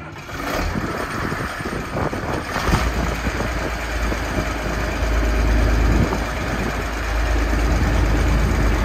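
Massey Ferguson 1105 tractor's six-cylinder Perkins diesel starting up. It turns over with an uneven clatter for the first couple of seconds, catches about three seconds in, then runs at a steady, deep idle that grows a little louder.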